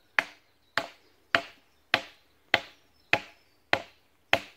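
Hammer driving a wooden stake, with eight sharp, evenly paced blows about 0.6 seconds apart, each dying away quickly.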